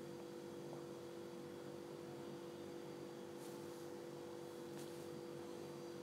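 Faint steady hum of two held tones over low background hiss.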